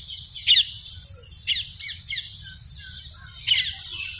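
A flock of small birds calling: a handful of short, sharp chirps that fall in pitch, scattered through the seconds, over a steady high hiss.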